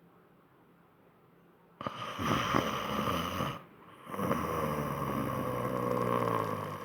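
Snoring: two long snores, the first about two seconds in and the second, longer and steadier, starting about four seconds in.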